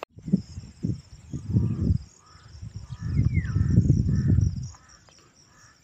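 Gusts of wind buffeting the phone's microphone with a low rumble, strongest about three to four and a half seconds in. Under it are a steady high insect drone and a series of short bird calls.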